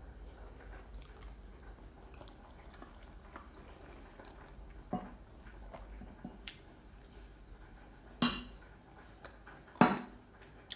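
A metal fork clinking and scraping on a ceramic plate of spaghetti. It starts with a few soft clicks, then comes a sharper clink about halfway through, and two loud clinks about a second and a half apart near the end.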